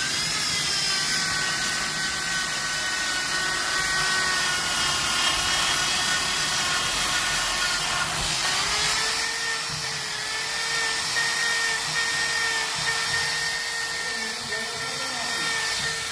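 A small motor running with a steady whine that steps up slightly in pitch about halfway through.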